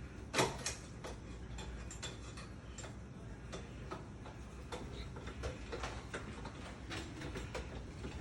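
Irregular sharp clicks and light metallic taps, several a second, with one louder knock about half a second in, typical of hand tools working on door lock hardware.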